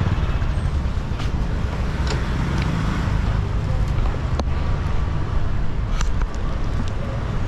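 City street traffic noise: a steady rumble of passing vehicles, with a few sharp clicks scattered through it.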